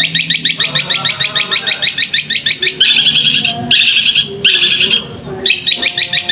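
Long-tailed shrike (cendet) singing a fast run of sharp high notes, about seven a second, broken in the middle by a harsher, scratchy chatter before the quick run resumes.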